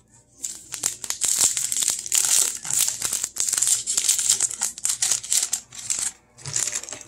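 Foil wrapper of a 2021 Topps Series 2 baseball card pack crinkling and tearing as it is opened and the cards are pulled out: a dense crackle that breaks off briefly about six seconds in.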